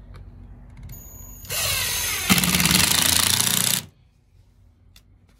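Ryobi cordless impact driver driving a screw through an OSB board. The motor spins up about a second in, the rapid hammering of the impacts starts shortly after as the screw bites, and it stops suddenly once the screw is set.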